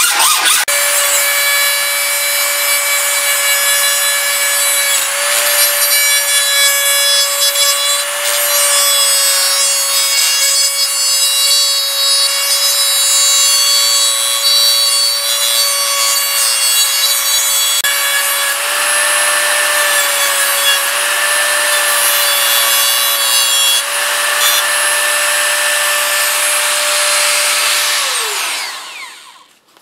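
A Dremel rotary tool with an abrasive cutoff wheel cutting through hard hand-saw steel: a steady high whine with a hissing grind, dipping slightly in pitch now and then as the wheel bites. Near the end it is switched off and winds down, its pitch falling. At the very start there are a few hacksaw strokes on the same plate.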